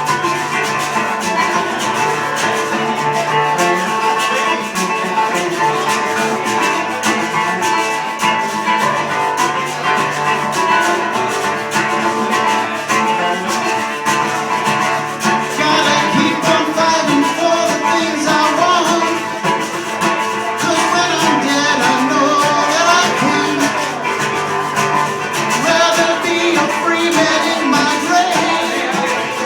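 Live music: guitar playing a reggae song. A wavering melody line joins over the guitar about halfway through.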